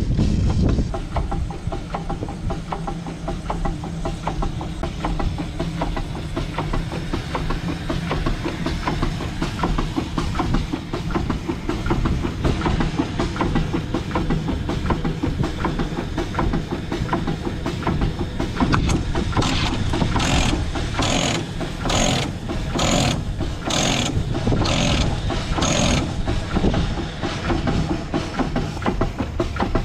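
3/4-scale Case 65 hp steam traction engine running, a steady fast mechanical clatter over a low rumble. About two-thirds of the way in, a run of about eight short hisses comes roughly once a second.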